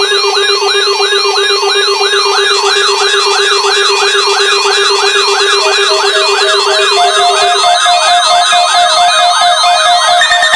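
Electronic siren in a fast yelp, rising sweeps repeating about three times a second, layered with a steady tone that drops out near the end and a stepping electronic beep that comes in about halfway through.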